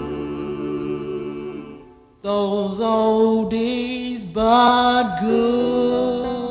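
Doo-wop vocal group singing a slow ballad in close harmony. A held chord fades out about two seconds in, and the voices come back in on long sustained notes with slides between them.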